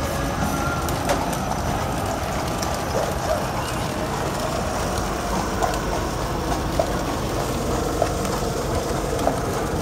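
A century-old horse-drawn buggy rolling along a sealed road: a steady rumble and rattle from the wheels and carriage, with light knocks from the horse's hooves about once a second.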